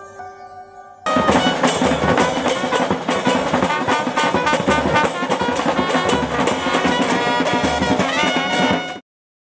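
A fading chime gives way, about a second in, to a brass band playing: trumpets, trombone and tuba over a steady beat of snare drum, Premier bass drum and hand cymbals. The music cuts off abruptly near the end.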